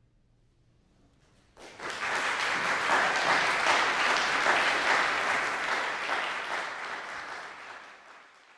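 Concert audience applauding: clapping starts suddenly about a second and a half in after a hushed pause, swells to a steady full applause, then fades away near the end.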